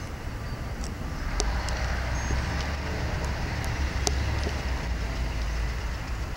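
Low outdoor rumble, typical of road traffic, with scattered sharp clicks and one brief high chirp a little over two seconds in.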